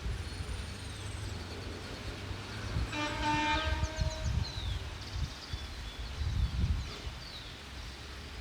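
Birds calling with short high chirps and quick downward whistles over a steady low rumble. About three seconds in, a brief steady-pitched horn-like tone sounds for under a second.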